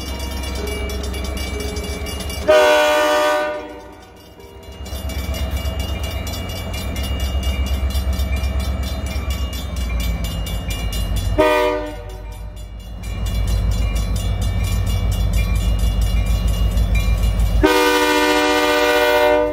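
EMD SD40M-2 diesel locomotive rumbling closer with its chime horn sounded three times for the grade crossing: a short blast, a slightly longer one, then a long one. Crossing signal bells ring throughout.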